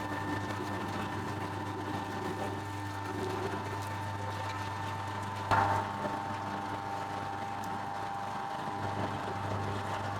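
Bakery dough mixer running steadily with a low hum and a steady whine, while wheat flour is worked into the dough. About five and a half seconds in there is one brief louder knock.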